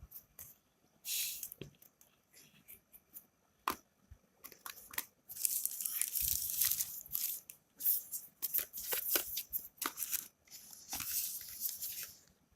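Packaging being torn open and crinkled by hand during an unboxing: irregular crackling and tearing bursts with small clicks, sparse at first and then busier through the second half.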